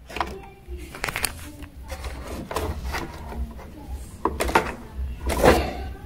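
Hands fitting a rubber hose onto the plastic pressure switch of a Brastemp washing machine: a scattering of small plastic clicks, knocks and rubbing, with a louder bout of handling near the end.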